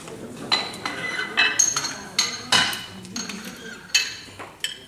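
Metal clinking and clanking of weight plates and collars on a racked barbell as the load is adjusted: about ten sharp strikes, each with a short ring.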